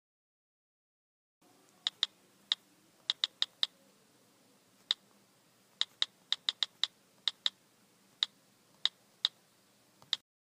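Keys clicking in typing, single sharp clicks at an uneven pace, starting about a second and a half in and stopping just before the end, over a faint hiss.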